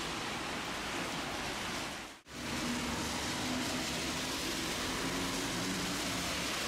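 Steady hiss of heavy rain heard from the front of a Tosaden tram, with a faint low hum underneath. The sound cuts out for an instant a little over two seconds in.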